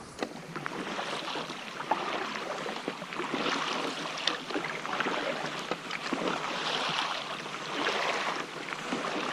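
Double-bladed kayak paddle stroking through calm sea water, with splashing and drips from the blades that swell and fade every second or two.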